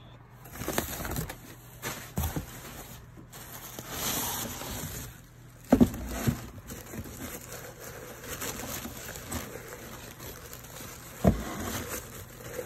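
Packing paper rustling and crinkling as hands dig through a cardboard box, with several knocks from the box and its contents, the loudest about six seconds in and again near the end.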